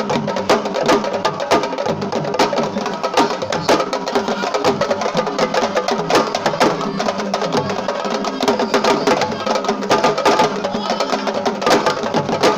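Fast, dense sabar drumming, many sharp slaps and cracks in quick succession, with voices singing over it.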